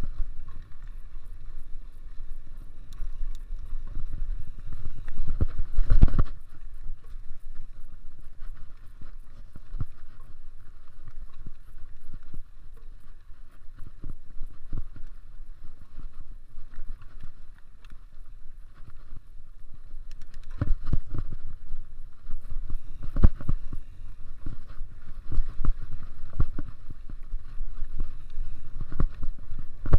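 Mountain bike rolling along a dirt trail: steady tyre and wind rumble with rattles from the bike, and several sharp knocks as it hits bumps, the loudest about six seconds in and more in the last third.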